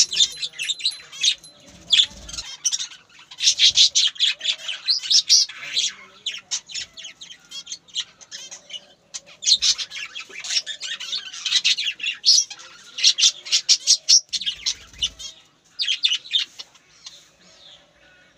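Birds chirping in quick, rapid runs of high notes, broken by short pauses.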